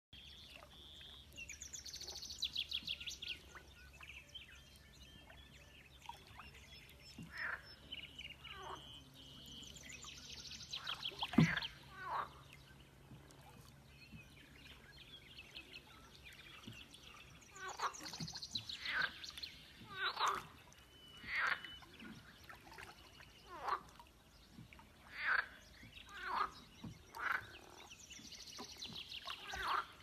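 Frogs calling from the water: rapid pulsed trills and short croaks repeated every second or two, coming thicker in the second half.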